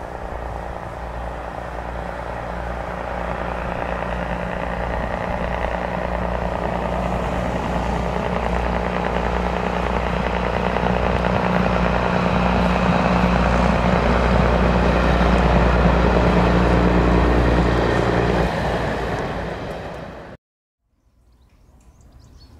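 Diesel train running past, its engine note steady in pitch and growing louder for about fifteen seconds. The low engine note drops away near the end, and the sound cuts off abruptly, leaving faint outdoor ambience.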